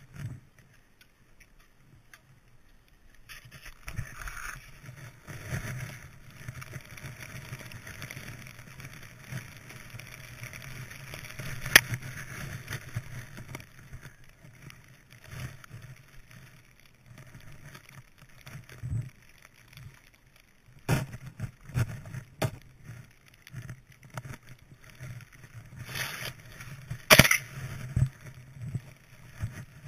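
Skis swishing through deep powder snow, with a low wind rumble on the camera microphone and a few sharp knocks, the loudest about twelve seconds in and another near the end.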